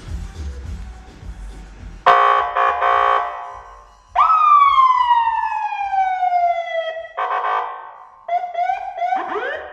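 Emergency-vehicle siren on a Ford cycling through its tones: a loud horn-like blast about two seconds in, then a long wail falling steadily in pitch for about three seconds, a second short blast, and a fast warbling yelp near the end.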